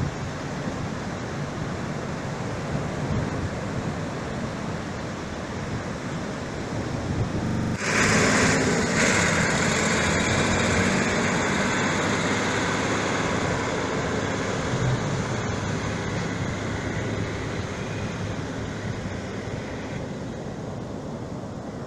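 Surf washing on the beach with wind noise on the microphone. About eight seconds in it turns suddenly louder, as a farm tractor's diesel engine runs, towing a boat through the shallows.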